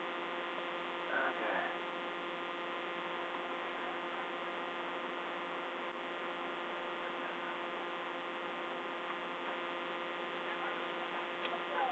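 Steady electrical hum with several fixed tones over a hiss, the noise floor of a police car's dash-camera audio system, with a faint short sound about a second in.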